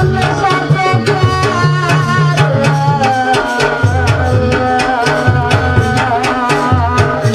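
Live Javanese jaranan gamelan music: a hand-struck kendang drum playing rapid strokes, a wavering high melody line above it and deep low tones sustained underneath.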